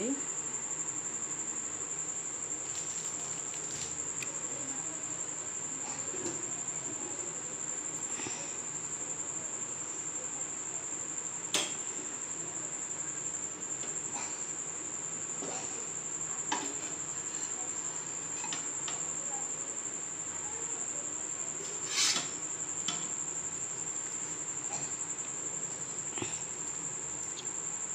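A cricket trilling steadily on one high note, with a few light clicks and knocks from bread and utensils being handled on a frying pan. The loudest click comes a little over twenty seconds in.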